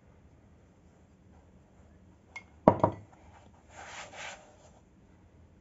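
A small drinking glass set down on the table with two sharp knocks close together, followed about a second later by a short rub of floury hands brushed against each other.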